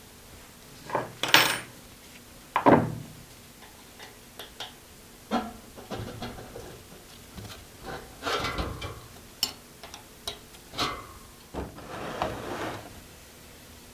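Metal machine parts being handled: irregular clanks and knocks with short scraping and rubbing sounds, the two loudest knocks in the first three seconds.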